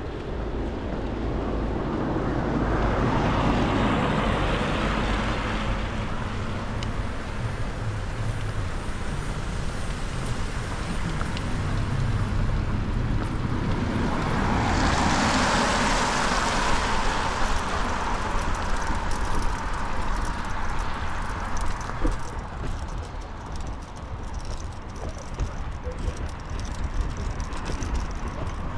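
Cars passing on a wet road, their tyres hissing, over a steady low rumble of traffic. One swells past a few seconds in, and a louder one about halfway through.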